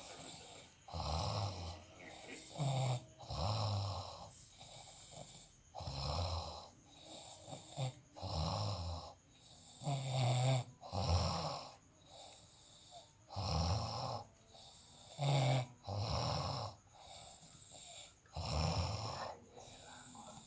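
A sleeper snoring deeply: about a dozen low, rasping snores at an uneven rhythm, one every one to two seconds, with short quiet gaps between.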